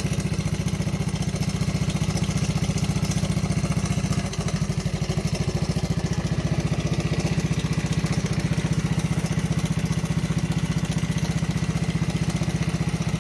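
Honda ST50 Dax's small single-cylinder four-stroke engine idling steadily, just restarted after a full restoration.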